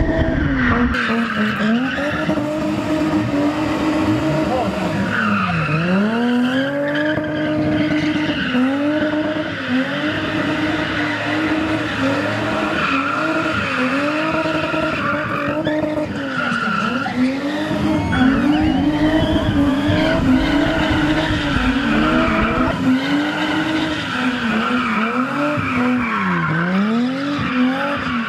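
Red BMW E30 3 Series spinning on tarmac: its engine held high in the revs, rising and falling constantly with a few sharp dips, over the steady screech of the spinning rear tyres.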